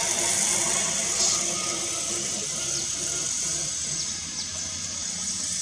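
Engine of a log-hauling cable winch running steadily with a low hum, under a steady high hiss, with a few faint short high chirps.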